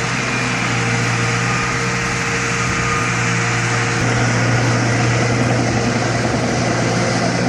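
Small Caterpillar bulldozer's diesel engine running steadily and loud, with a dense mechanical clatter.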